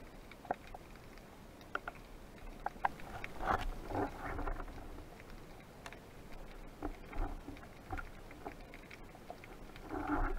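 Underwater sound picked up through a camera housing: scattered faint clicks and crackles, with muffled rushes of water and handling noise about three and a half seconds in and again near the end.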